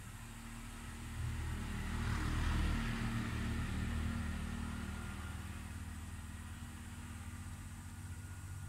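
A motor vehicle passing: a low engine hum with tyre hiss that swells to its loudest about two and a half seconds in, then slowly fades.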